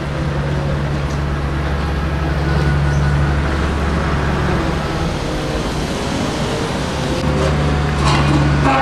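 Road traffic at a city intersection, with the low, steady rumble of a heavy vehicle's engine that fades about halfway through and comes back near the end.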